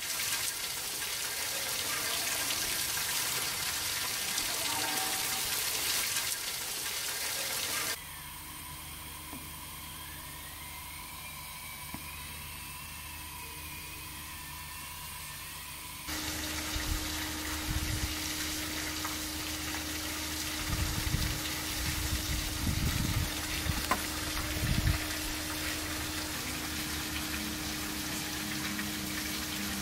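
Steady rushing noise for the first eight seconds. Then a quieter hiss with a faint whistle wavering up and down. Then wind buffeting the microphone in low thumps over a steady hum.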